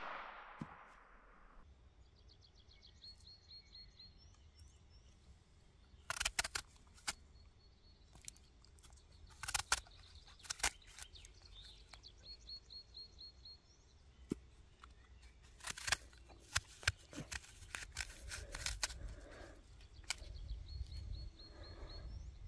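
Small birds chirping in short repeated trills, with scattered sharp clicks and crunches close by as a folding knife cuts an apple open and the halves are handled.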